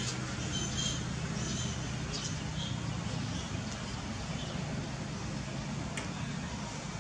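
A steady low motor hum, with a few short high chirps in the first three seconds and a single click about six seconds in.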